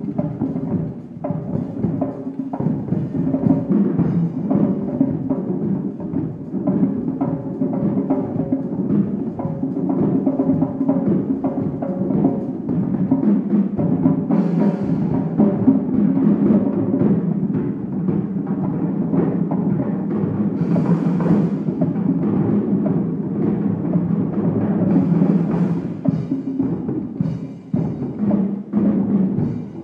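A djembe ensemble played with bare hands, many drums beating together in a steady, dense rhythm.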